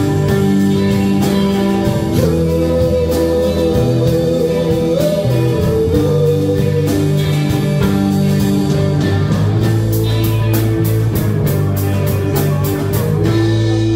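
Live rock band playing an instrumental passage on electric guitar, electric bass and drum kit, with one long held note that bends up about five seconds in. Fast, dense cymbal strokes build over the last few seconds.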